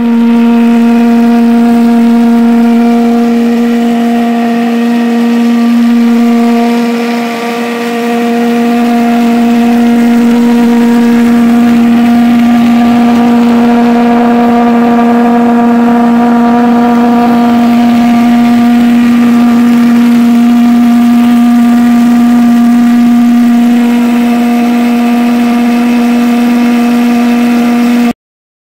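Homemade gas-fired focused-wave valveless pulse jet engine running, a loud steady buzzing drone held at one pitch. It dips briefly in loudness about seven seconds in and cuts off suddenly near the end.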